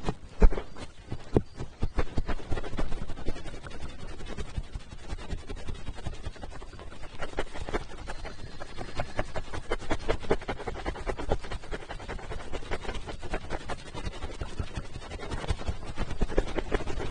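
Fast, continuous close-up crackling and rubbing right against the microphone: an ASMR trigger sound, many irregular small clicks a second.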